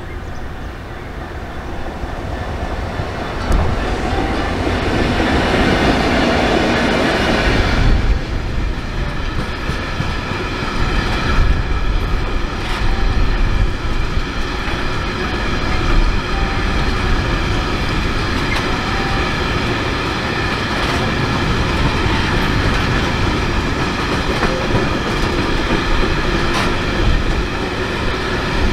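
GB Railfreight Class 66 diesel locomotive, its two-stroke EMD V12 engine growing louder as it approaches and passes about eight seconds in. It is followed by a long rake of engineers' box wagons rolling past, with steady wheel-on-rail rumble, ringing tones and occasional clacks over rail joints.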